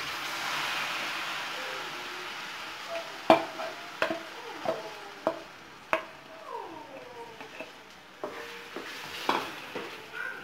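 Blended spinach paste poured into hot butter in a pan, sizzling for the first couple of seconds, then a spatula scraping the bowl and stirring in the pan with sharp taps and short falling squeaks.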